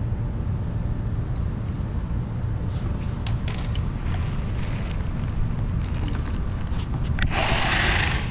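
Low wind rumble on the microphone, with a scattering of sharp clicks and knocks as a Cleary Scout 26 kids' mountain bike rolls down concrete steps. Near the end comes a brief rustling hiss as the camera is handled.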